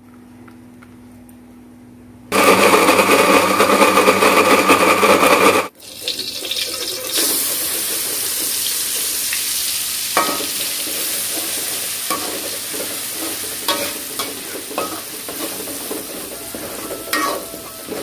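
An electric blender runs for about three seconds, grinding chilies, shallots and garlic into a paste, and cuts off suddenly. Then the chili paste sizzles in hot oil in an aluminium wok while a metal spoon stirs it, clinking and scraping against the pan now and then.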